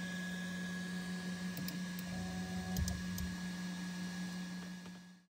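Creality Ender 3 3D printer running its homing sequence: a stepper motor whines briefly as the print head travels along the gantry, with a few sharp clicks, over a steady hum.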